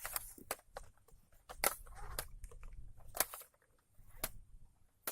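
A series of irregular sharp clicks and crunching rustles, the loudest about a second and a half in and just after three seconds.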